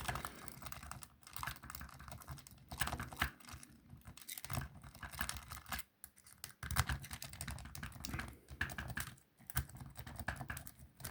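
A key being jiggled and worked in a wafer lock: rapid small metallic clicks and scraping as it catches on the wafers, in bursts with brief pauses. The key fails to open the lock.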